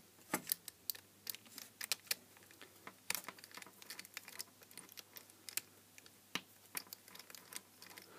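Irregular small clicks and taps of a small screwdriver working the screws of a plastic screw terminal block to free its wires.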